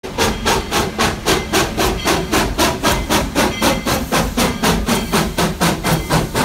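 Narrow-gauge steam locomotive No. 40 working under steam, its exhaust chuffing in a steady rhythm of about four beats a second.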